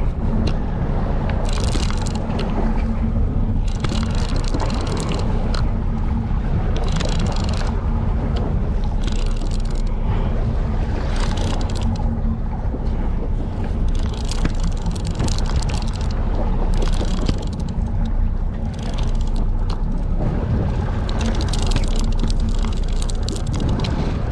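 A fishing boat's engine running with a steady low hum, while water sloshes and splashes against the hull in irregular gusts.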